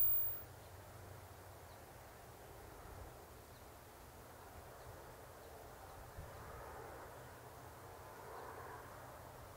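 Faint outdoor ambience: a low steady rumble under a soft, even haze of distant noise, with no distinct events.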